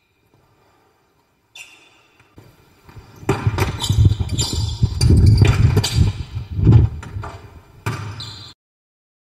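Basketball bouncing on a hardwood gym floor with sneakers stomping and scuffing as a player rips, pivots and sweeps the ball past a defender. The thuds are densest and loudest through the middle, then stop suddenly near the end.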